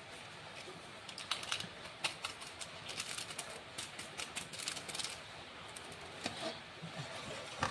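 Light crinkling and clicking of a small paper sachet being torn open and shaken out over cake batter. Near the end, a wire whisk clicks against an aluminium bowl.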